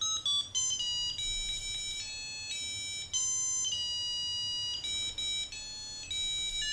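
Makeblock mBot Ranger robot's built-in speaker playing a run of electronic beep notes at different pitches, one after another, some short and some held for about a second, as keys are tapped on a piano keyboard in its phone app.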